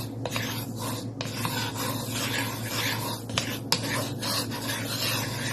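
Spatula scraping and rubbing across the bottom of a pan in uneven strokes, spreading a little cooking oil around the warm pan.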